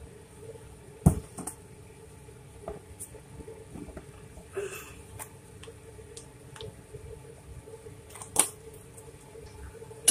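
Kitchen handling sounds while powdered spices are added to fish in a plastic bowl: a sharp knock about a second in and another near the end, a short rustling shake in the middle, over a faint steady hum.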